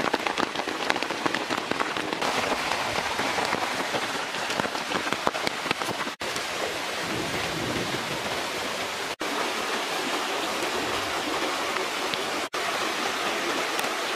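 Heavy rain falling on leaves and ground: a steady hiss thick with the patter of drops, broken off for an instant three times.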